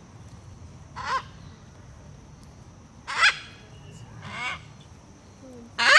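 Macaw giving four short, harsh squawks a second or two apart, the last the loudest.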